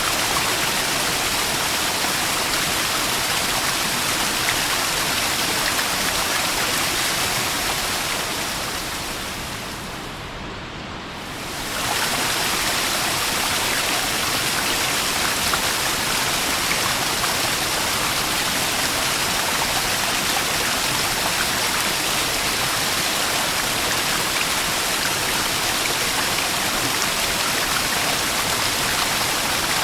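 Small waterfall's steady rush and splash of water, fading down and back up about ten seconds in.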